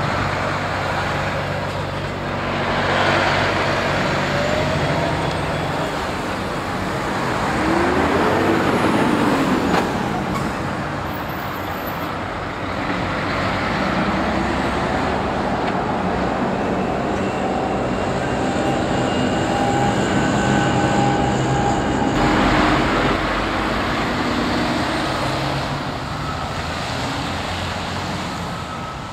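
Diesel articulated lorries driving through a road junction one after another, engines pulling and accelerating, with tyre noise and passing cars. The sound swells several times as each lorry goes by, and an engine's pitch rises and falls about a third of the way in.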